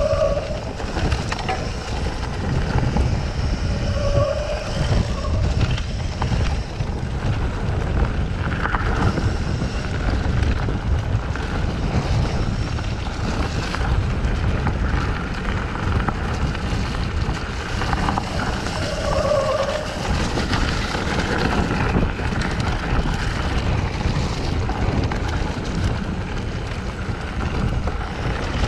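Wind buffeting the camera microphone while a mountain bike rolls fast down a dirt forest trail, with tyre noise and rattling knocks from the bike over bumps. A few short tonal squeaks cut through near the start, a few seconds in and about two-thirds of the way through.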